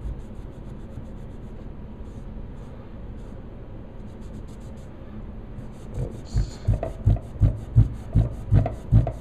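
Cloth rag wetted with nail polish remover rubbing over the painted metal receiver of an airsoft M4, low and even at first, then scrubbed back and forth in quick strokes, about three a second, from about six seconds in, wearing the paint away.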